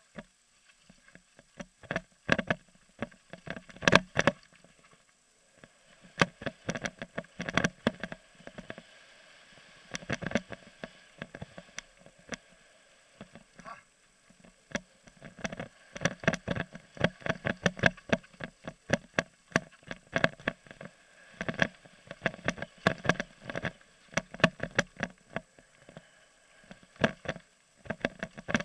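Mountain bike clattering down a rough dirt trail, heard through a helmet-mounted camera: bursts of rapid knocks and rattles as it runs over bumps, with short quieter stretches between.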